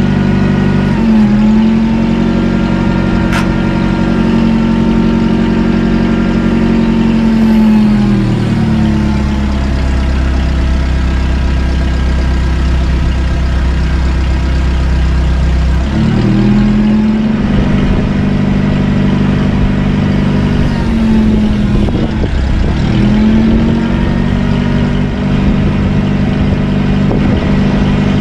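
Truck engine driving the hydraulics of a HIAB knuckle-boom crane, revving up and holding as the crane's levers are worked. It drops back to idle for several seconds, revs up again, dips briefly, and comes back up.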